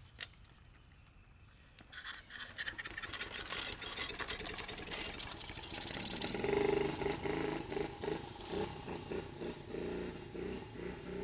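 Small 50cc dirt bike engine revving up about two seconds in and pulling away, then running on with a fast, steady buzzing pulse.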